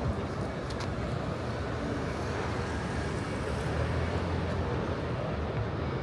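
Steady low rumble of outdoor city ambience, with distant road traffic.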